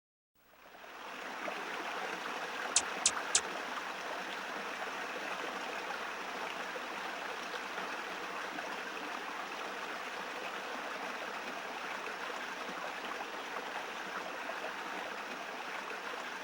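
Steady rushing of a stream, fading in over the first second. About three seconds in come three quick sharp clicks.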